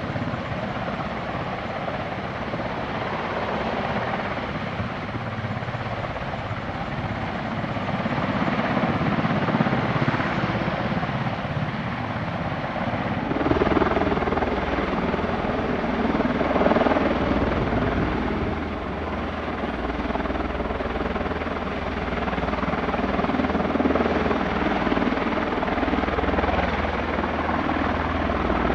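Boeing CV-22B Osprey tilt-rotors running on the ground with their Rolls-Royce turboshaft engines turning the proprotors, a steady rotor-and-engine noise that gets louder about halfway through.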